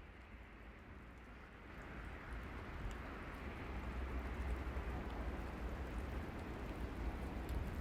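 A steady rushing hiss that grows louder about two seconds in, over a low rumble of wind buffeting the microphone.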